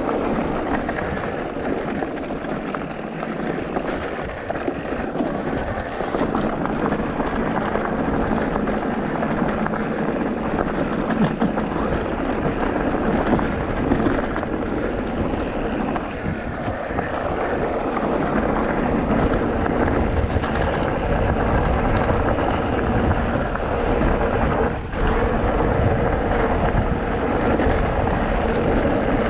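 A vehicle's engine running continuously on a dirt trail, its level rising and falling, with wind on the microphone and a brief dip about 25 seconds in.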